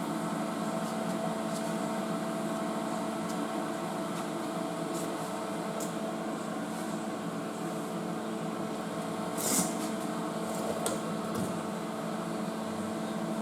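Steady mechanical hum of shop equipment, with a few light clicks and taps and a short hiss about nine and a half seconds in.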